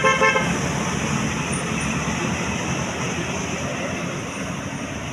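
A tour bus's multi-tone musical 'basuri' horn cuts off about half a second in, then the bus's engine and road noise fade gradually as it goes by.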